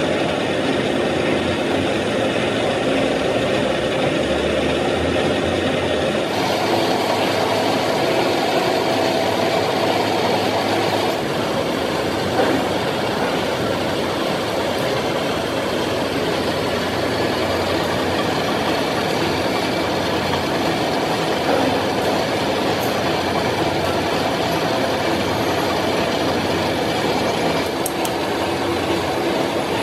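Gear hobbing machine running steadily as its hob cutter cuts teeth into a stainless steel pinion shaft: a continuous mechanical cutting and drive noise. The sound shifts abruptly about six and eleven seconds in.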